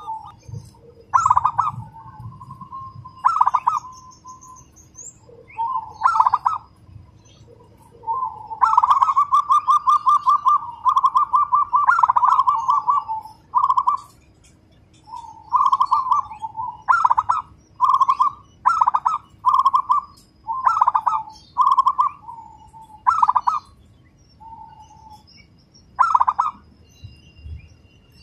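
Zebra dove (perkutut) singing: bursts of rapid, tightly packed staccato coos. A long unbroken run comes about nine to thirteen seconds in, then a string of short coo phrases about a second apart.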